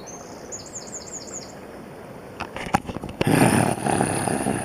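A small songbird sings a quick series of high, down-slurred notes for the first second and a half. It is followed by a few clicks and, from about three seconds in, a louder steady rushing noise.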